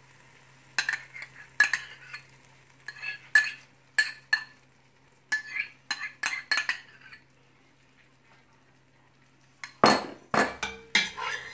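Metal spoon clinking and scraping against a ceramic bowl and a stainless steel pot as thick yogurt is spooned out, a string of short sharp clinks over the first seven seconds. After a pause, a louder clatter of utensils against the pot near the end.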